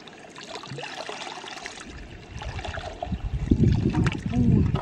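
Water sloshing and gurgling out of a bamboo-tube eel trap as it is lifted from shallow water, getting much louder and fuller about three seconds in.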